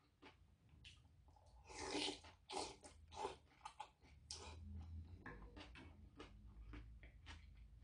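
A man eating sundae-gukbap (blood-sausage and pork soup) from a spoon: a few short, loud slurps between about two and four and a half seconds in, then chewing with many small wet mouth clicks.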